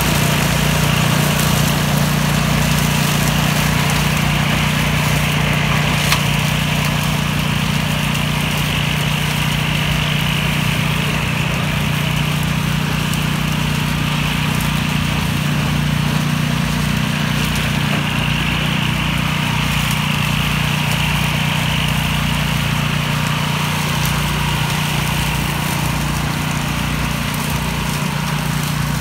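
A DR Power tow-behind mower's engine and the Kubota's engine running steadily at constant speed with a strong, even hum, while the mower cuts through tall grass and reeds.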